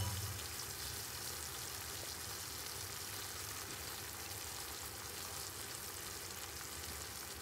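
Apple slices frying in butter and sugar in a nonstick frying pan, sizzling with a steady hiss.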